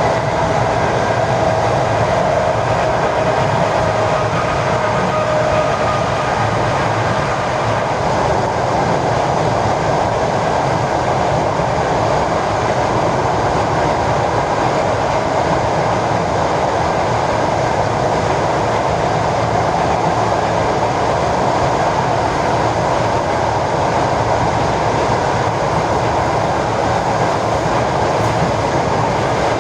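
ED4M electric multiple unit running along the line, heard from aboard: a steady rolling noise that holds even throughout. A thin whine sits over it at first and fades out within the first six seconds.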